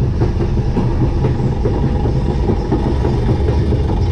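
Caterpillar kiddie roller coaster train running along its steel track, the wheels rumbling and clattering steadily on the rails, heard from the front car.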